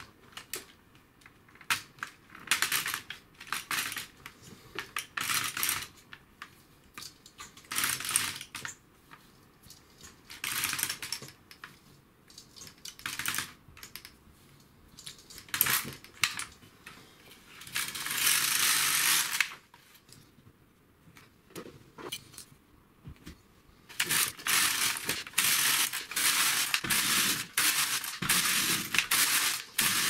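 Silver Reed LK150 knitting machine carriage pushed along the needle bed, clicking and rattling over the needles. It goes in several short, slow pushes as the first row after the cast-on is knitted carefully, then in a longer, continuous run of passes from about two-thirds of the way in.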